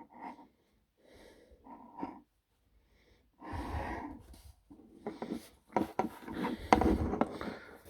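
Handling noise from a plastic Transformers action figure being turned over in the hands: scattered rubbing and rustling, with several small plastic clicks in the second half.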